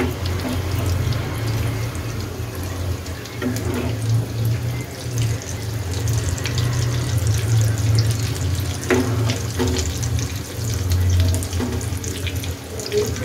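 Veg lollipops deep-frying in hot oil in a kadai, sizzling steadily, with the clink and scrape of a steel ladle turning them a few times. A steady low hum runs underneath.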